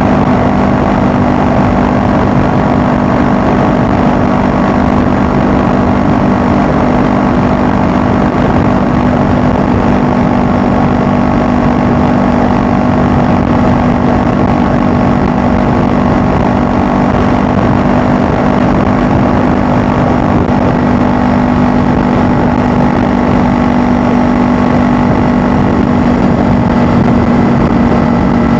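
Honda Rebel 500's parallel-twin engine running at a steady engine speed while cruising at highway speed, with a steady rush of wind noise over it.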